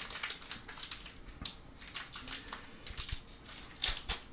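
Small plastic toy packaging crinkling and clicking as it is opened by hand, a run of irregular crackles and clicks, loudest around three and four seconds in.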